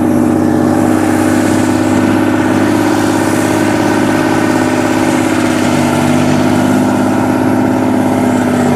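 Small farm tractor's engine running steadily at an even speed as it wades through floodwater.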